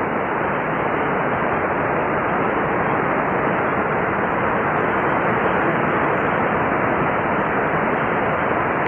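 Heavy rain pouring down in a rainy-season storm, a loud, steady, even hiss.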